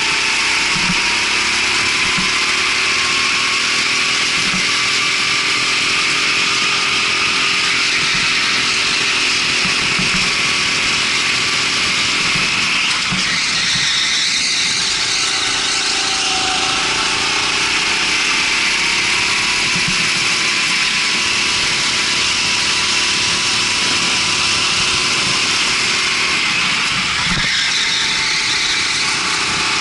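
Rental go-kart engine running continuously, its pitch slowly falling and rising as it speeds up and slows, under a steady rush of noise.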